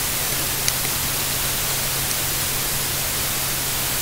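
Steady electronic static hiss with a low hum underneath, switching on abruptly, with a faint click under a second in.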